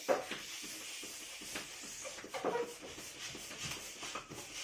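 Handheld balloon pump being worked in quick repeated strokes, each push hissing air into a latex balloon as it inflates.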